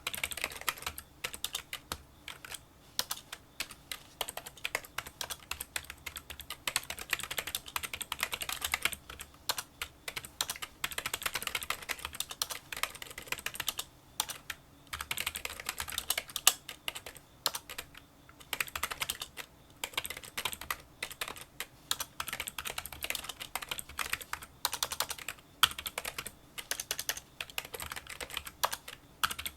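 Fast touch-typing on a Kinesis Freestyle Solo split keyboard with membrane key switches: a dense run of small, light clicks, quieter than a typical membrane keyboard, broken by brief pauses between bursts.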